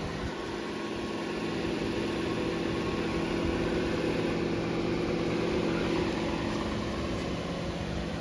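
Toyota RAV4 engine idling steadily, a low even hum that swells slightly midway.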